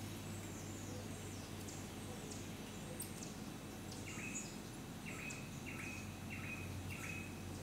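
Faint animal calls over a steady low hum. Quick, high chirps slide downward throughout, and from about halfway a run of five short calls follows, each a level note that drops at the end, roughly one every two-thirds of a second.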